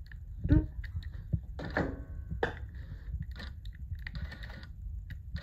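New-Tech GC-8700D direct-drive industrial sewing machine sewing single stitches at the press of a button on its head: a few faint clicks and short mechanical runs of the needle over a low steady hum.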